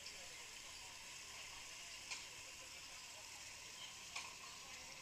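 Faint steady hiss with two soft ticks about two seconds apart.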